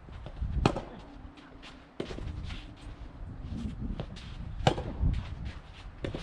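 Soft tennis balls being hit by rackets: four or so sharp pops, the loudest about a second in and near the end, over a low rumble of strong wind on the microphone.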